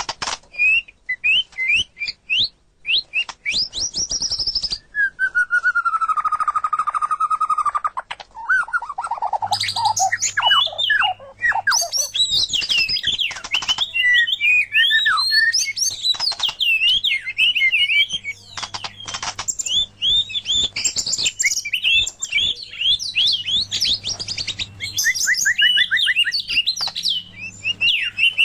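White-rumped shama (murai batu) and oriental magpie-robin (kacer) singing: a rapid, varied run of clear whistles, trills and chirps, including one long drawn-out whistle about five to eight seconds in. About nine and a half seconds in a different recording takes over, denser and with a faint steady hum beneath it.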